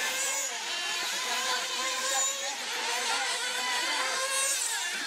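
Several nitro RC buggy engines, small two-stroke glow engines, running together, their overlapping buzz rising and falling in pitch as the cars accelerate and brake around the track.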